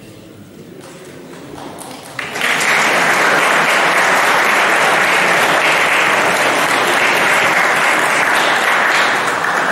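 Audience applauding, breaking out suddenly about two seconds in and holding steady until it eases near the end.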